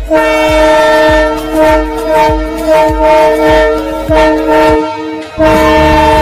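Diesel locomotive horn blowing long and loud, several tones sounding together with brief breaks, over a music track's regular thumping drum beat. Near the end the beat stops and a low rumble runs beneath the horn.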